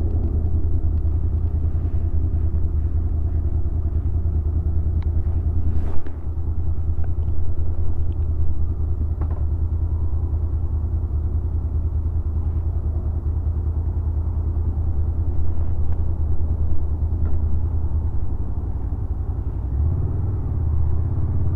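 2016 Honda VFR800's V4 engine idling steadily through the stock exhaust, a deep even rumble. There is a sharp click about six seconds in, and the engine note shifts and rises slightly near the end.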